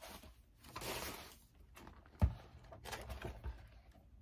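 Paper rustling as printed pattern sheets are handled and shuffled, with a dull thump about two seconds in.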